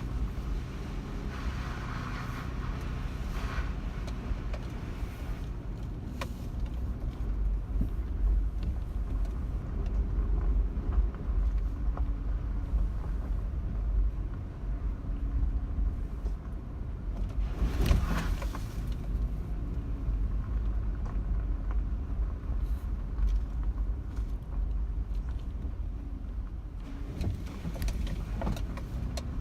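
Vehicle driving on a dry dirt and gravel road: a steady low engine and tyre rumble with scattered small knocks and rattles, and a brief louder rush of noise about eighteen seconds in.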